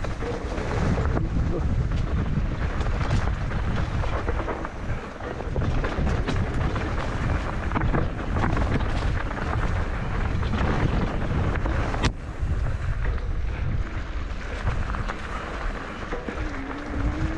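Wind buffeting the microphone while a mountain bike rattles down a rough dirt trail, with frequent knocks and clatter from the tyres and frame hitting rocks and roots, and one sharp click about twelve seconds in.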